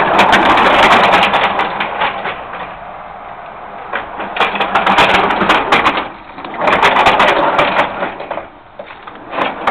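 Wooden car of a homemade backyard roller coaster rolling on its pipe-rail track, the wheels rumbling and clattering over the wooden supports. It is loudest in three spells: at the start, and twice more after a quieter stretch in the middle.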